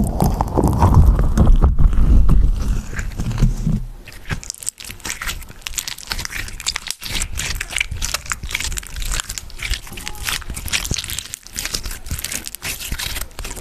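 Slime squeezed and stretched right on a microphone. For the first few seconds it is pressed over the grille, giving a loud muffled rumble. From about four seconds in it is squished just in front of the mic, giving a dense stream of small crackles and pops.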